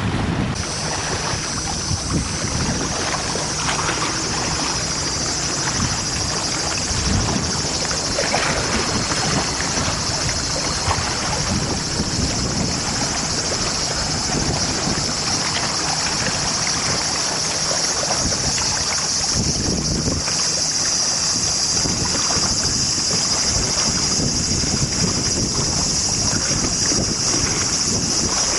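Wind buffeting the microphone, with lake water lapping at the shore. A steady high-pitched hiss sets in about half a second in and holds.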